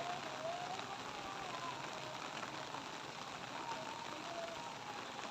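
Steady light rain falling, an even hiss. Behind it a faint, wavering, drawn-out tone that slides slowly up and down.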